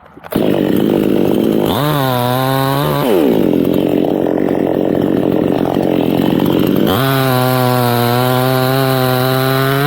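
Two-stroke chainsaw starting up sharply, running at a lower speed, then revved up to high speed twice: briefly about two seconds in, and again from about seven seconds to the end.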